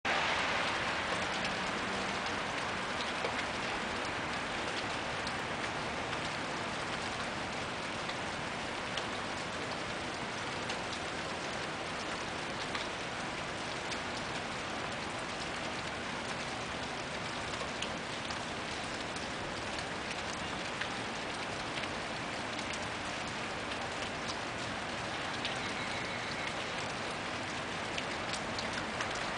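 Freezing rain falling steadily: an even hiss with scattered light ticks.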